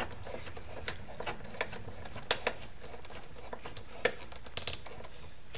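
Small screwdriver tightening a wire-clamping terminal screw on a variable frequency drive: faint, irregular clicks and scrapes over a low steady hum.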